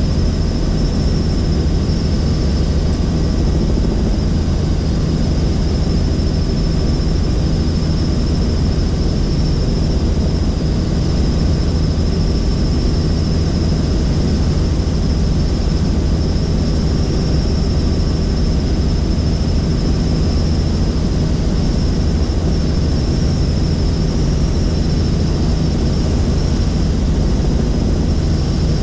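Helicopter in flight heard from inside the cabin: a loud, steady drone of rotor and engine with a thin high whine held above it.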